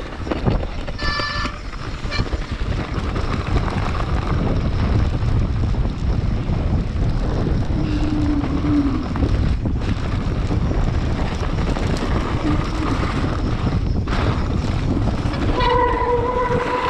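Wind buffeting a handlebar-mounted camera's microphone, with the rattle and rumble of a mountain bike riding fast down a snowy trail, a loud steady low roar. There is a brief high squeal about a second in and a steady pitched squeal near the end.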